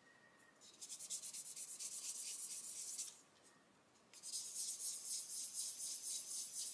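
A flat sanding stick rubbed back and forth in quick, even strokes over the mating face of a small plastic model rudder half, flattening it so the trailing edge will close thin and gap-free. Two bouts of rapid hissy strokes with a pause of about a second between them.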